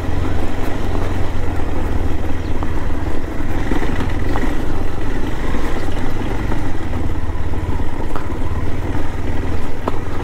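KTM adventure motorcycle's single-cylinder engine running steadily at low speed over a rough, stony dirt track, with a few light knocks and clatters from the bumps.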